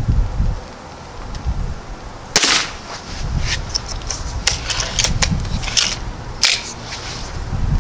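Gamo Swarm break-barrel .177 air rifle firing: one sharp shot about two and a half seconds in and another strong one near the end, with several lighter clicks and knocks between.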